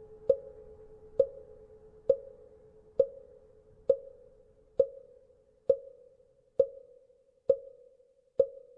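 Vietnamese wooden fish (mõ) struck at a steady, even pace, about one knock a second, each hollow knock ringing briefly. Underneath, a faint lingering hum from the temple bell dies away in the first half.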